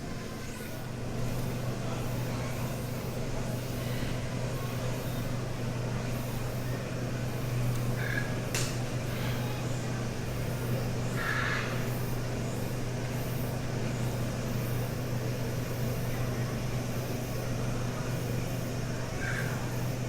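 Steady low mechanical hum of machinery, setting in about a second in, with a few brief faint higher calls or voices in the background.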